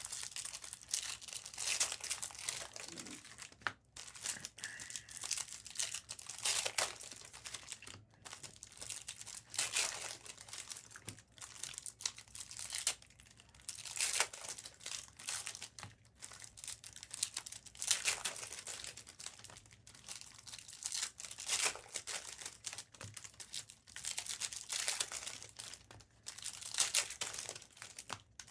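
Trading-card pack wrappers being torn open and crinkled, in irregular rustling bursts every second or two, with cards shuffled between them.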